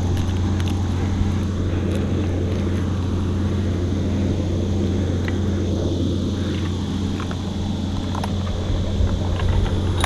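Chainsaw engine idling steadily, a low even hum, with a few light clicks and knocks over it.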